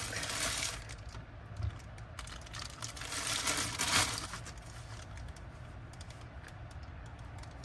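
Handling noise from the impact wrench and its packaging being moved about: scattered light clicks and taps with some rustling, a little busier near the start and again around the middle.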